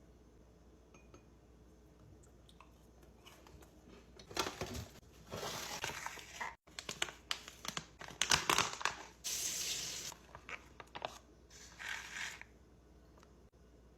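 Bursts of close-miked crunching and crinkling from food and its packaging being handled, starting about four seconds in and mixed with sharp clicks. There is a brief dropout to silence about six and a half seconds in.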